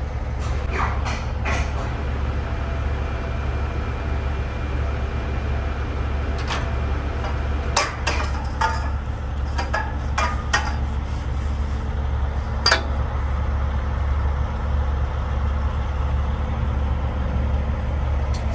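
Log truck's diesel engine idling steadily, with scattered metal clanks and rattles from the trailer hoist's hook, chain and the trailer's steel frame. They bunch together in the middle and end with one sharp clank.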